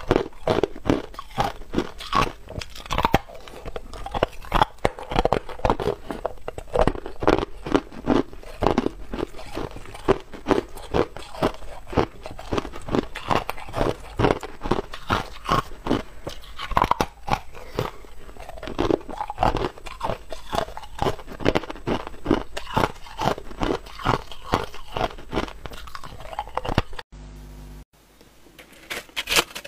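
Close-miked crunching and chewing of hard ice: a rapid, irregular run of sharp crunches as a block of frozen ice is bitten and ground between the teeth. It stops about three seconds before the end.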